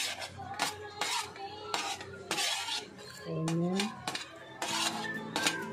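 Metal spoon scraping and clinking on a metal tray and against a glass bowl as chopped onion is pushed into vinegar dipping sauce. Background music with a steady beat plays throughout.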